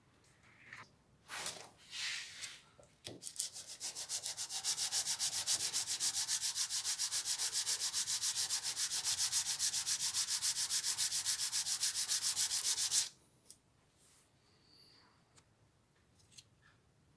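Old screwdriver's wooden handle being rubbed back and forth on a strip of sandpaper by hand, in fast, even strokes several times a second. The sanding starts after a few short scrapes, about three seconds in, and stops abruptly about thirteen seconds in.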